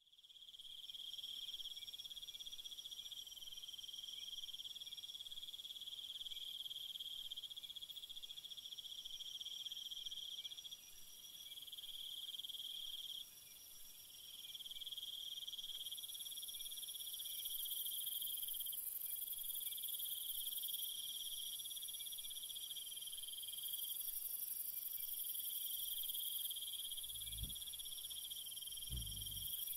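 Chorus of trilling insects, a steady high-pitched buzz in several layered pitches that shifts abruptly in places. Two dull low thumps come near the end.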